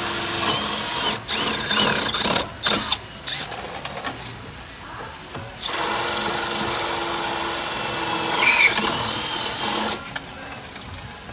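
Milwaukee Fuel brushless cordless drill drilling a 3/8-inch hole up through a brace bracket into the fiberglass, running in two steady bursts. Between them there are a couple of seconds of louder, irregular noise.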